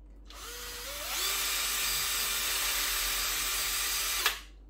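Cordless drill widening a pilot hole in a plastic bottle. The motor spins up with a short rising whine, runs steadily while cutting for about three seconds, and stops suddenly near the end.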